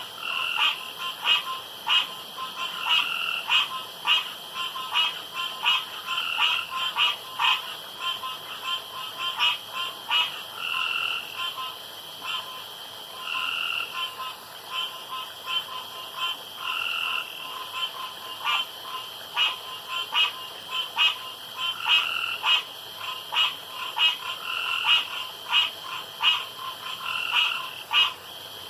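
Male frogs calling at a pond: many short, sharp croaks in quick, uneven succession, with longer croaks of about half a second every couple of seconds, over a steady high chorus.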